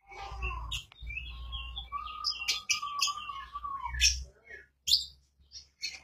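Lovebird chattering in full song: a run of sharp chirps and squeaks with a long, wavering call in the middle, over a low rumble.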